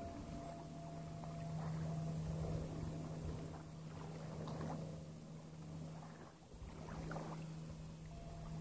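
Water splashing and dripping from kayak paddle strokes, in irregular splashes, over a steady low drone of background music.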